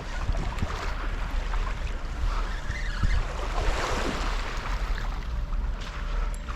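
Sea waves washing and splashing, with wind rumbling on the microphone.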